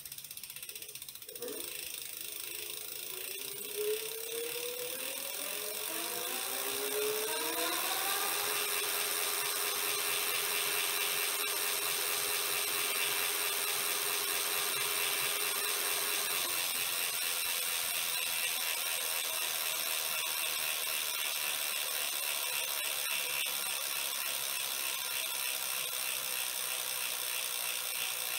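Nishiro e-bike's electric motor driving the wheel up to its top speed of about 37.7 km/h: a whine that climbs in pitch over the first eight seconds, holds one steady tone, then cuts out about sixteen seconds in. A fast ratcheting whir from the spinning wheel and freewheel runs throughout as the wheel coasts down.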